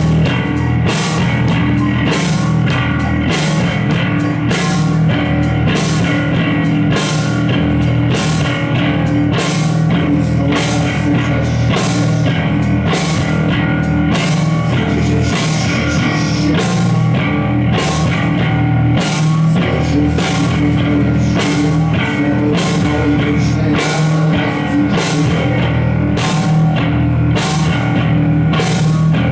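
Live rock band playing: electric guitar over drums keeping a steady, even beat.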